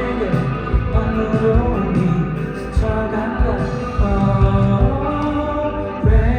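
Amplified pop music playing through a concert sound system, with a sung voice over the accompaniment.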